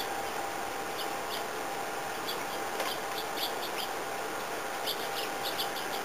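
Small songbirds at a backyard feeder giving short, high chirps in loose clusters, over a steady hiss.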